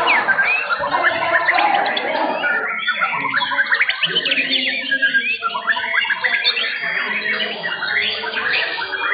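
Several white-rumped shamas (murai batu) singing at once, a dense, unbroken stream of rapid, overlapping chirps and whistles.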